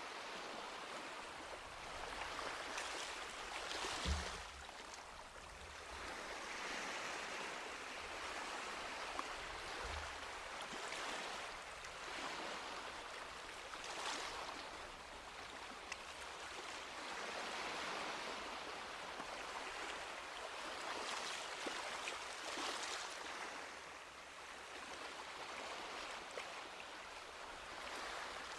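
Small sea waves washing onto a beach, the surf swelling and fading every few seconds. A brief low thump about four seconds in, and a softer one near ten seconds.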